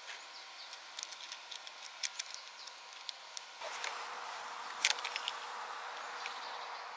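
Scattered light clicks and taps of bike parts being handled and fitted during a mountain bike build, over a steady background hiss that gets louder about three and a half seconds in.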